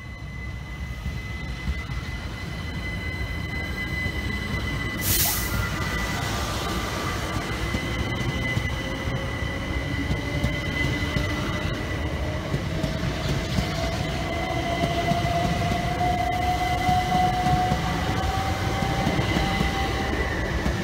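Class 377 Electrostar electric train running slowly past along the platform: a steady rumble of wheels on rail with a constant high whine, and a second whine that rises gradually in pitch. A short burst of noise about five seconds in.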